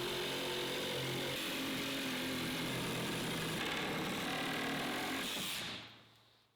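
DeWALT Atomic 20V MAX DCS369 cordless reciprocating saw running steadily with a motor hum and a hiss, then dying away near the end.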